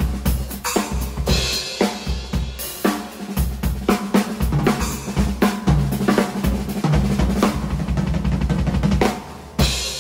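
Drum kit with Sabian AA and Zildjian K cymbals played at a fast, busy beat of kick drum, snare and cymbals. A loud cymbal crash comes near the end.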